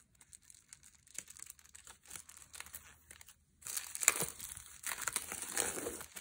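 Clear plastic shrink wrap crinkling as wrapped paper items are handled, becoming louder and denser about three and a half seconds in after a quieter stretch of faint handling noise.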